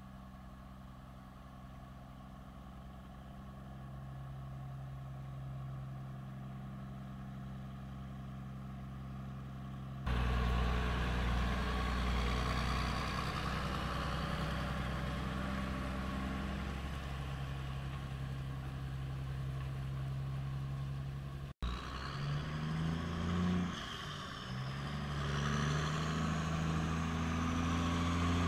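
Heavy diesel semi-truck engine running steadily, the sound changing abruptly about ten seconds in and again about two-thirds of the way through. Over the last several seconds the engine pitch rises as the truck accelerates and the sound grows louder.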